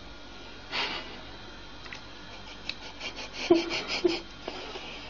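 Rubbing and rustling of fabric as a small animal wriggles inside a bra, with a louder rustle about a second in. A few short giggles come about three and a half seconds in.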